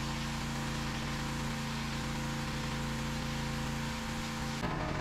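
Gas pressure washer's 209cc engine running steadily under the hiss of the high-pressure water jet striking a concrete walkway. The sound shifts abruptly near the end.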